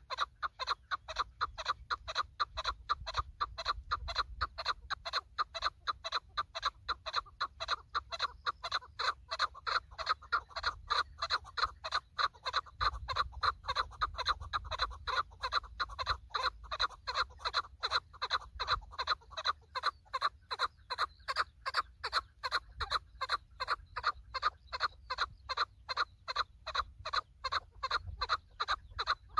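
Chukar partridge calling: a steady, unbroken run of short clucking 'chuk' notes, about three a second.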